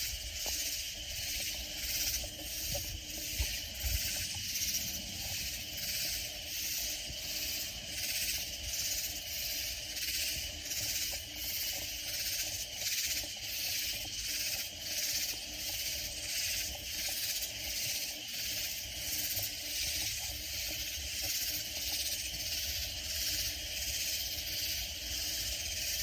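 Katydids calling in a loud, shrill, rasping chorus that pulses in an even rhythm, about three pulses every two seconds.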